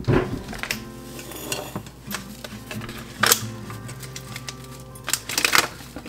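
Background music with the crinkling and rustling of a foil coffee bag being handled and opened, in scattered bursts, the loudest about three seconds in and a cluster around five seconds.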